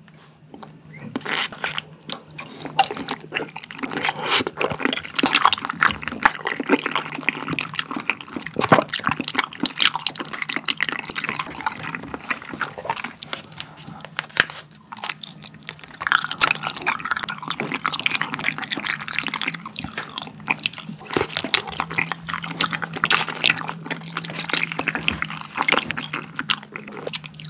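Close-up wet mouth sounds of eating Shine Muscat grape jelly from its plastic pouch: sucking and chewing, full of small wet clicks, with two brief pauses.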